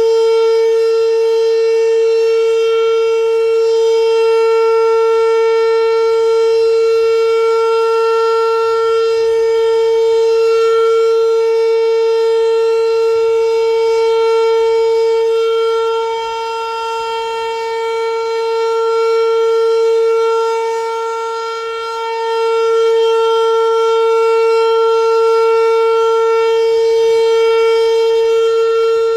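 Fedelcode Model 5 eight-port tornado siren sounding the Full Alert: one steady, loud wail held at a constant pitch. Its level dips for several seconds in the middle, then swells back.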